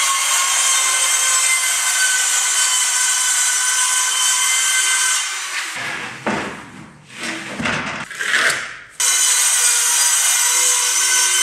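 Handheld circular saw cutting through a wall panel, its blade whining steadily. It stops about five seconds in, and a few knocks and scrapes follow as the cut board is moved. The saw starts cutting again about nine seconds in.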